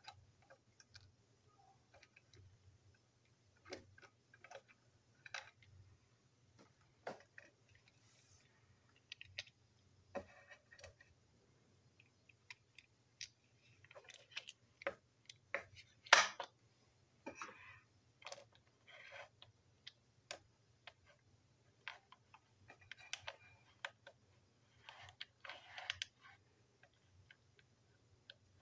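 Small plastic clicks and knocks, irregular and faint, from a TrackMaster toy train truck being taken apart by hand, with one louder knock about halfway through.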